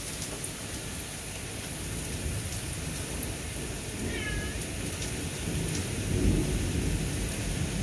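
Steady rain with thunder rumbling, the rumble swelling to its loudest about six seconds in. A frightened house cat gives a short meow about four seconds in.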